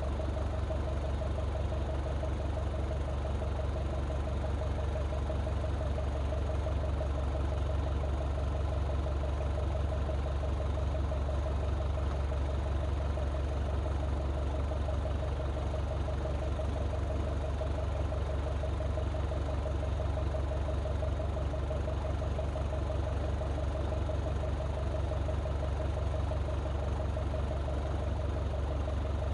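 Dresser 100G track loader's engine idling steadily.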